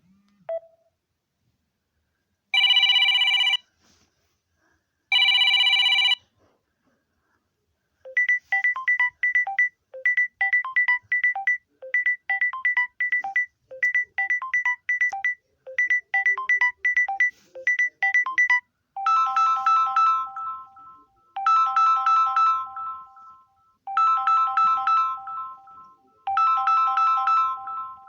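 Samsung Galaxy A01 Core stock ringtones playing one after another. First come two long buzzing rings of about a second each, then about ten seconds of quick short beeping notes in small groups. Near the end a chiming phrase of about two seconds repeats several times.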